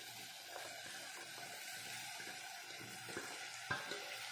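Onion-tomato masala sizzling quietly in ghee in a pressure cooker as diced bottle gourd is tipped in from a steel bowl, with a single light knock near the end.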